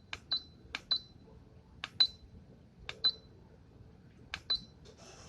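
Buttons on a Roowo cool mist humidifier being pressed one at a time. Each press is a click followed by a short high beep, about five presses at uneven intervals. A faint hiss begins near the end.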